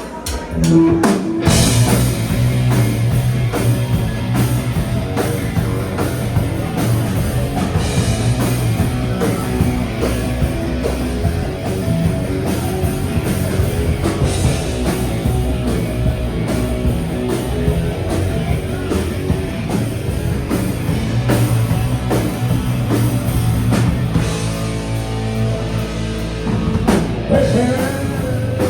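Grunge tribute rock band playing live, with drum kit and guitars; the full band comes in loud about a second in.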